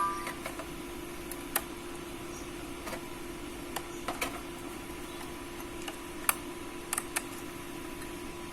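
Scattered light clicks and taps of a screwdriver and small screws on a metal laptop hard-disk bracket holding an SSD, about eight in all, over a steady background hum.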